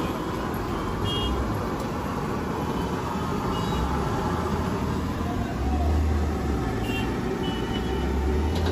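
Busy roadside street noise: a steady traffic rumble that swells in the low range in the second half, with a few short, faint high beeps.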